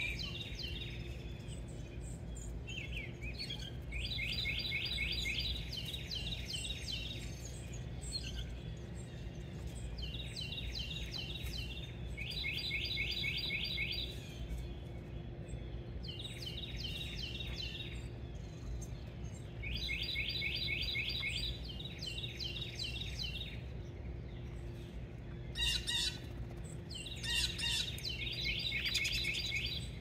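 A songbird singing, repeating a phrase of rapid, evenly spaced notes a second or two long several times over, over a steady low hum. A few sharp clicks come near the end.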